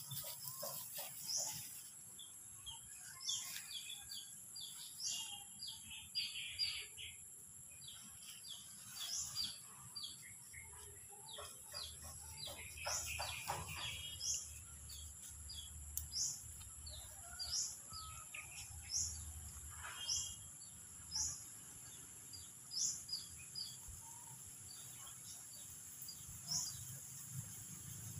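Small birds chirping and calling, one repeating a short high note every second or two, over a steady high-pitched hiss.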